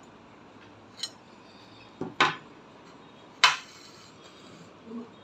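Metal kitchen knife and ceramic plate clinking against a glass tabletop: four sharp clinks, a pair close together about two seconds in and the loudest about three and a half seconds in.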